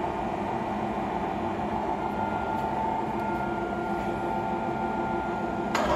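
Poreba heavy-duty gap bed lathe with a 25 HP motor running, a steady mechanical hum with a few held tones. Close to the end there is a click and the running gets louder as the carriage's rapid traverse engages.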